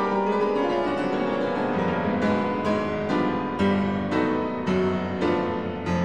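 Background music played on a keyboard instrument, with new notes struck about twice a second.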